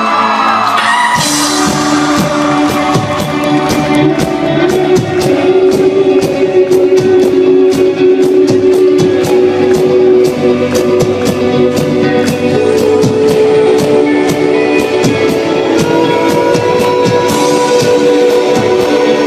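Live rock band playing a song: guitars holding sustained notes, singing, and a drum kit with steady, evenly spaced cymbal hits that start about a second in.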